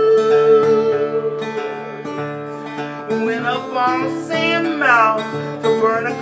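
Acoustic guitar being strummed with a man singing over it; about halfway through the voice slides up and down in long wavering notes.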